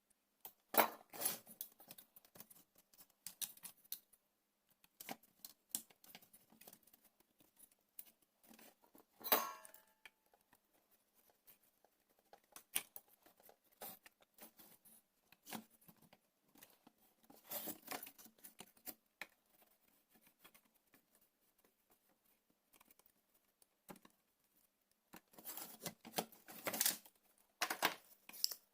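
Small clicks, scrapes and metallic taps of hands and tools fitting a power transistor and its clamp strip onto a battery charger's heatsink, with a sharper metallic clink about nine seconds in.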